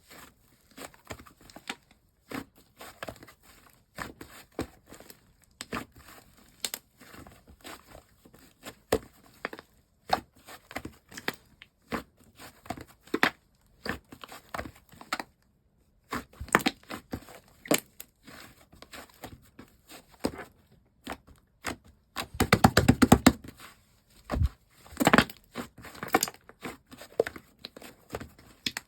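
Clay slime being handled by hand, pressed, poked and stretched, making a running series of small sticky clicks and crackles. About three-quarters of the way through comes a louder, denser stretch of crackling.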